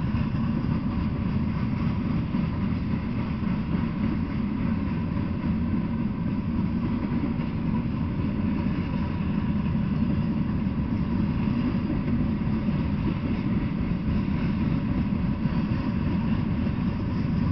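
Freight train of loaded coal hopper cars rolling past at a steady speed: a continuous low rumble of wheels on rail, even throughout with no horn or sudden knocks.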